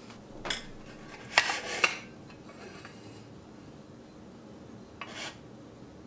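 Stainless steel French press lid and plunger being fitted onto the pot: a light click, then a short cluster of metal clinks and scraping about a second and a half in, and a brief scrape near the end.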